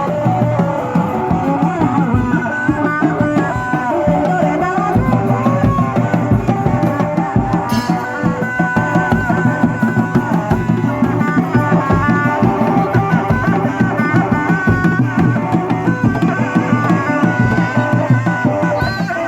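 Live kuda lumping accompaniment music: drums beating a fast, dense rhythm under a wavering, ornamented melody line.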